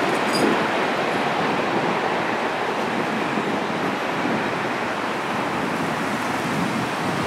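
Jet engine noise of a Boeing 767-300ER on final approach just past the observer, a steady rushing noise that eases slightly as the airliner moves off toward the runway.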